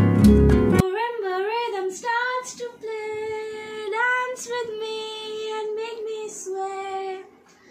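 Background music with plucked guitar cuts off about a second in, followed by a young female voice singing a slow, wavering melody unaccompanied.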